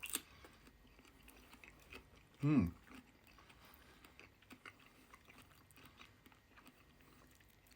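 Close-up chewing of a mouthful of fresh cucumber, with faint crunching and small mouth clicks. A short voiced hum, falling in pitch, comes about two and a half seconds in.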